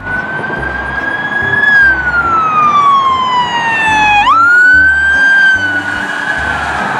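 Police car siren wailing: a long slowly falling tone that sweeps quickly back up about four seconds in, holds high, and begins to fall again near the end.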